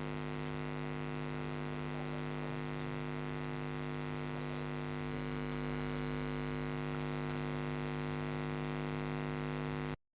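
Steady electrical hum, a stack of even tones with no change in pitch or level, cut off suddenly near the end.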